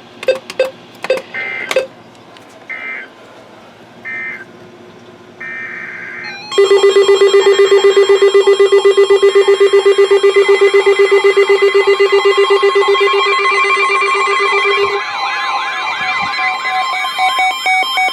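Emergency Alert System signalling on weather radio: a few short, screechy digital data bursts, then from about six seconds in a loud, rapidly pulsing alert beep, joined near the end by a warbling, siren-like alert tone.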